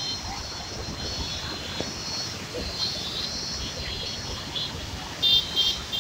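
River in flood rushing over rocks below a dam's open sluices, a steady roar of water with wind on the microphone and faint crowd voices. Short high-pitched beeps or whistles come and go over it, the loudest two about five seconds in.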